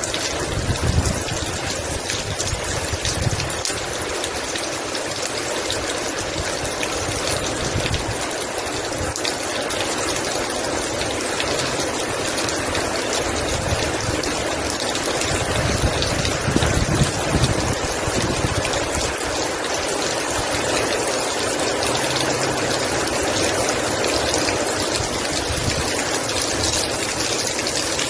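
Heavy rain falling steadily, a dense even hiss of drops, with a low rumble that swells and fades now and then.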